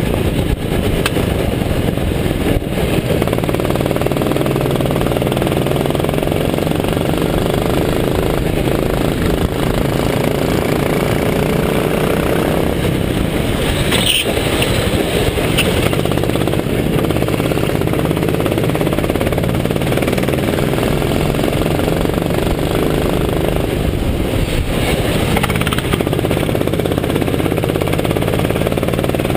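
Go-kart engine running hard at speed, heard from the driver's seat, its pitch rising and falling gently through the corners. A brief hiss comes about halfway through.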